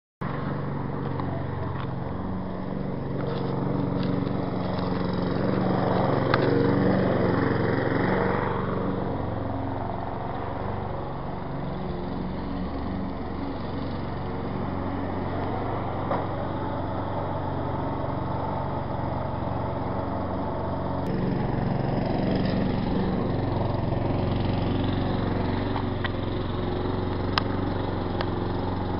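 Lawn mower engine running steadily, cutting in abruptly at the start and swelling a little louder a few seconds in before settling back to an even running note.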